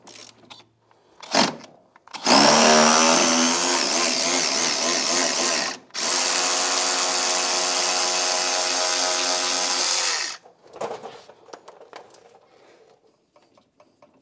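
Cordless power tool run twice for about four seconds each, with a short break between, backing out a lower shock-mount bolt on an ATV. A couple of metal clinks come before it.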